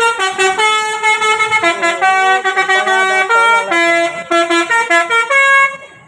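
Bus telolet horn, a set of multi-tone air horns, playing a tune of quick stepped notes that jump up and down in pitch. It stops near the end.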